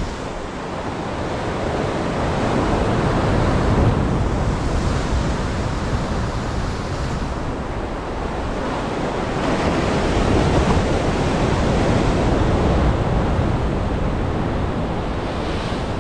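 Ocean surf washing onto the shore, swelling louder twice as waves come in, with some wind on the microphone.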